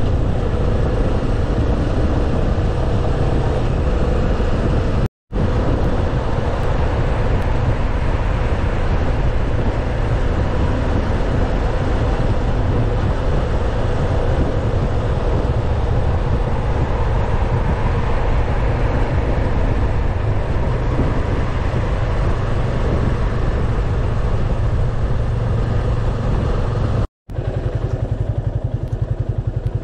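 Yamaha FZS25 single-cylinder motorcycle engine running while riding, with wind rushing over the microphone. The sound breaks off for a moment twice. Near the end the bike is stopped and its engine idles with a steady low putter.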